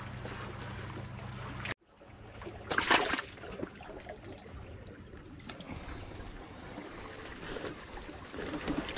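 Water trickling and lapping among shore rocks. A steady low hum cuts off abruptly a little under two seconds in, and there is a short burst of handling noise about three seconds in.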